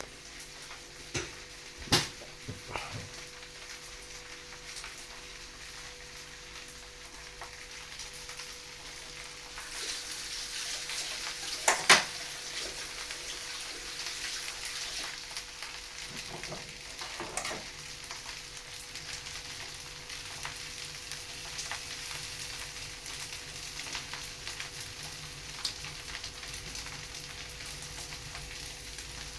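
Fried rice sizzling in a hot pan as it is stirred, with a few sharp knocks of the utensil against the pan, the loudest about twelve seconds in. The sizzle grows louder about ten seconds in. A faint steady hum runs underneath.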